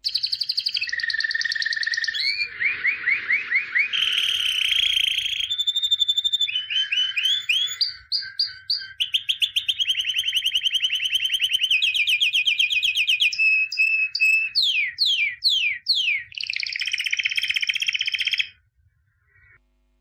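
A songbird singing a long, varied song: quick trills, runs of rapidly repeated notes and a series of falling whistles, changing phrase every second or two. It stops abruptly near the end.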